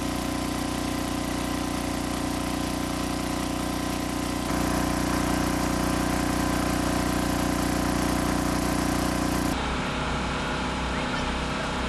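An engine running steadily: a constant hum with several steady tones. The sound shifts abruptly a little before midway and again toward the end, then carries on steadily.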